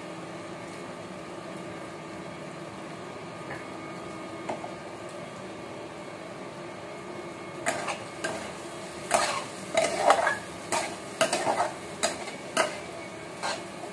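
Paneer bhurji frying quietly in a steel pot with a steady hiss. From about halfway, a steel spatula stirs it, clinking and scraping against the pot in short, loud strokes.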